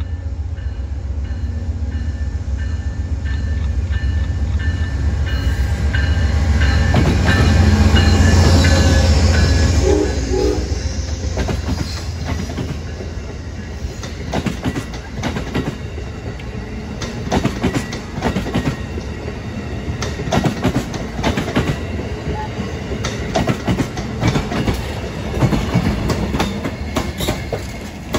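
An Amtrak Downeaster passenger train passing at speed behind a P42DC diesel locomotive: a heavy low rumble builds as the locomotive approaches and peaks about eight seconds in, then the passing coaches give a run of irregular wheel clicks and clatter on the rails.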